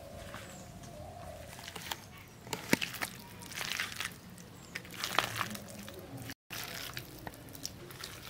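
Hands squishing and kneading boiled soya chunks in a wet batter of egg, gram flour and spices in a steel bowl: uneven squelching with a few sharp clicks, and a brief dropout about six seconds in.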